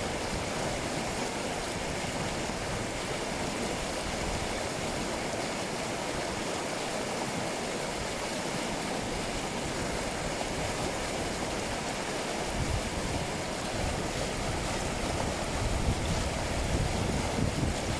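A small river babbling and rushing steadily over its bed. A low rumble comes and goes in the last few seconds.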